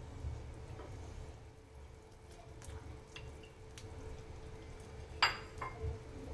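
Wooden chopsticks working in a pot of simmering soup of vegetables and meat, with light clicks and one sharp knock against the pot about five seconds in, followed by two softer knocks. A steady low hum runs underneath.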